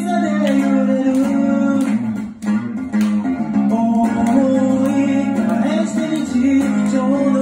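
A man singing live into a microphone while strumming chords on an electric guitar, the voice wavering above the steady chords. The music dips briefly about two and a half seconds in, then carries on.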